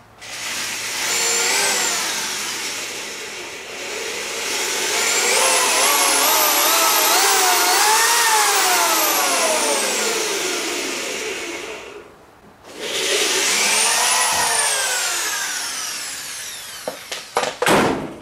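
Power drill boring a pilot hole into wood, the motor speed rising and falling with the trigger. It runs in two long stretches with a short stop about twelve seconds in, followed by a few clicks near the end.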